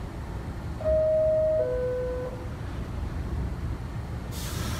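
NYC subway car's two-note door chime, a high tone then a lower one, over the low hum of the stopped train. Near the end a hiss of air sets in as the train readies to leave.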